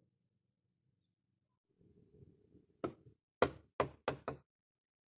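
A brief low scuffle, then five sharp knocks in quick succession as a wooden axe handle is rapped butt-down against a concrete floor.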